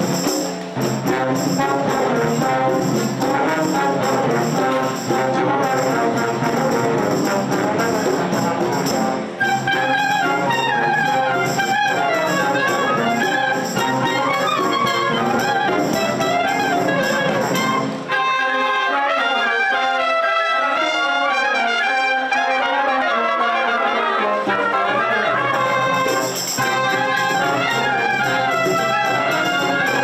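High school wind ensemble playing, with brass prominent. About 18 seconds in, the low instruments drop out for several seconds, leaving the upper voices. The full band comes back in near the end.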